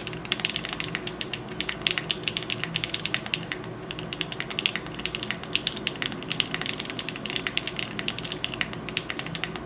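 Fast, continuous typing on a plateless 7V by gok aluminium custom mechanical keyboard with lubed Tecsee Zaku switches and GMK keycaps: a dense patter of keystroke clacks with a few louder presses.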